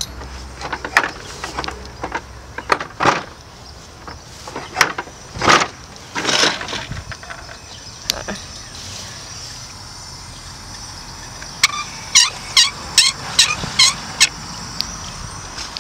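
Knocks and rustles of a garden hose reel cart being handled, then an outdoor faucet handle squeaking about seven times in quick succession as it is twisted open.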